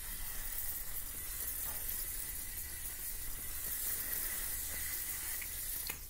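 Aerosol can of tanning spray being sprayed in one long continuous hiss, with a faint steady whistle from the nozzle, stopping abruptly near the end.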